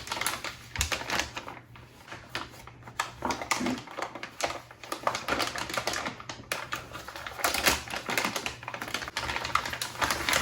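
Plastic instrument-cluster parts and the flexible printed-circuit backing being handled, giving rapid, irregular clicking and crackling.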